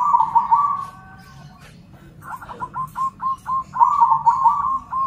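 Zebra doves (perkutut) cooing back and forth. A quick burst of coos comes at the start, then about two seconds in a run of short, clipped coos, roughly three a second, with calls overlapping around four seconds in.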